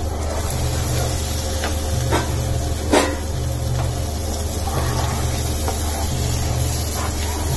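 Thick onion-tomato masala sizzling in oil in a non-stick pan, cooked down to the point where the oil separates. A plastic spoon stirs and scrapes through it, with a few sharp scraping clicks, the loudest about three seconds in. A steady low hum runs underneath.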